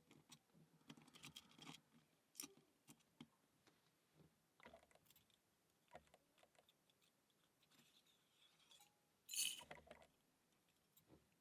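Faint, scattered small metal clicks and taps of cross lock cylinder pins, springs and tools being handled during disassembly, with a louder clatter of clicks about nine and a half seconds in.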